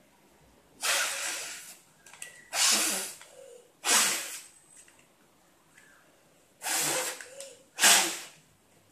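Puffs of breath blown hard into the opening of an origami paper balloon to inflate it: five breathy bursts, each about half a second to a second long, with short pauses between.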